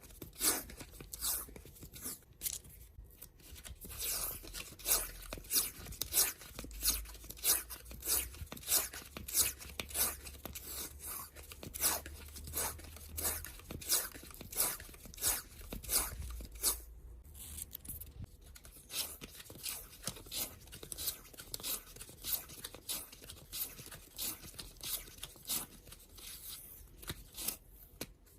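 Washi tape being pulled off the roll and wound into small samples, each pull a short, crisp peeling rip, about two a second, with a brief pause about two-thirds of the way through.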